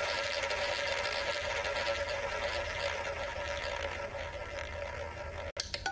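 Simulated roulette ball rolling around the spinning wheel: a steady rolling whirr that fades a little, then cuts off abruptly near the end as a short game tune begins.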